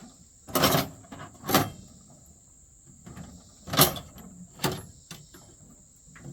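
Toolbox top and its lock being worked, giving a series of sharp clanks and rattles, about five, a second or so apart.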